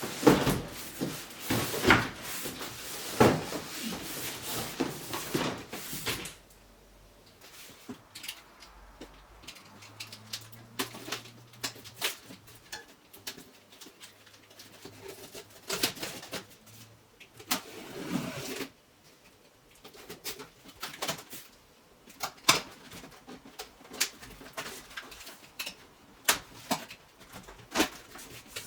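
Toy packaging being handled and opened: rustling, scraping and clicking of cardboard and plastic, dense and loud for the first six seconds, then scattered clicks with a couple of short bursts of rustling.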